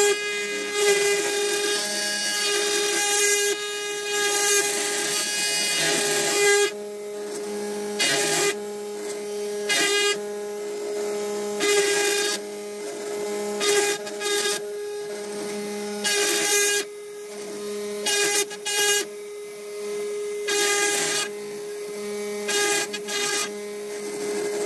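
3018 Pro desktop CNC router milling a wooden block with a small end mill in an ER11 collet. The spindle runs with a steady high whine, and hissy bursts of cutting noise come every second or two as the bit bites into the wood. A lower hum from the stepper motors comes and goes as the axes move.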